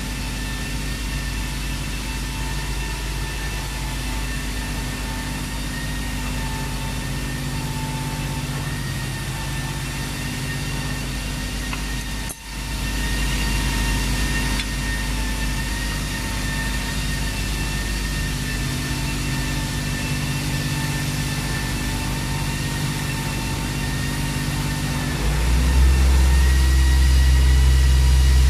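Engine idling with a steady hum and high, thin whine tones over it. It cuts out for an instant about twelve seconds in, and near the end the hum becomes louder and deeper.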